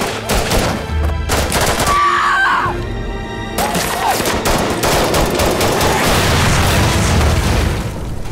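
Rapid automatic rifle fire, many shots in quick succession with brief lulls, over dramatic trailer music with a deep bass drone.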